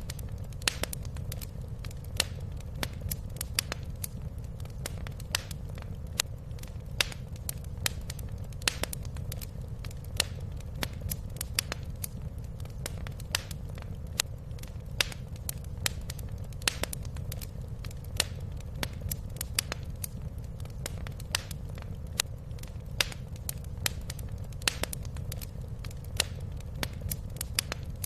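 Wood fire crackling: frequent irregular sharp pops and snaps over a steady low rumble of the burning fire.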